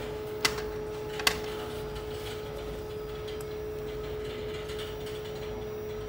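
Steady hum of mechanical-room equipment, one held tone over a low rumble, with two light clicks about half a second and a second and a quarter in.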